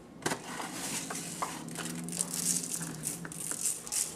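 Coarse raw sugar sprinkled by hand over egg-washed scone dough, the grains landing in a continuous crackle of small ticks and rustling.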